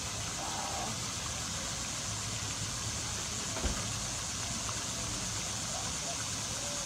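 Steady outdoor background noise: a constant high hiss over a low hum, with one short knock about three and a half seconds in.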